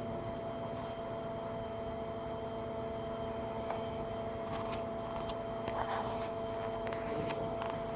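Tilt table's drive motor running with a steady hum as the table slowly tilts the tracked vehicle further over. A scatter of short sharp clicks comes in over the second half.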